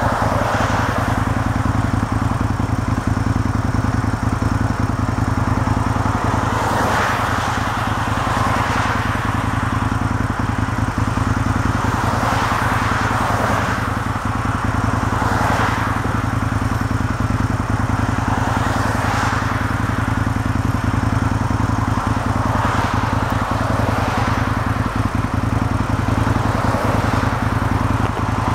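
John Deere 225D excavator's diesel engine running steadily under load, with a grinding, rushing noise from the ballast undercutter that swells and fades every two to three seconds.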